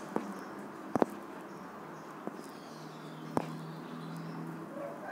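Four short, sharp taps, the kind a fingertip makes on a phone's touchscreen, spaced irregularly about a second apart, over a steady low background hum.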